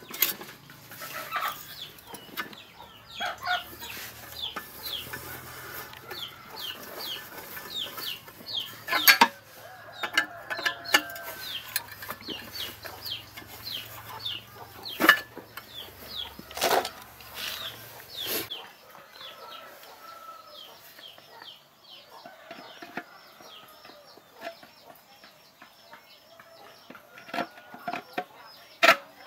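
Chickens clucking and peeping in a steady run of short falling calls. A few sharp metal clinks come from a socket wrench and extension being worked on the small pump engine.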